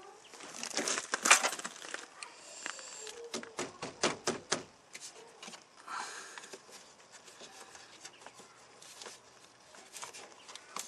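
Plastic and metal parts of a truck's inside door handle assembly clicking, knocking and scraping as they are pushed and fitted into the door by hand. There is a quick run of clicks about a second in and a few sharper knocks around four seconds.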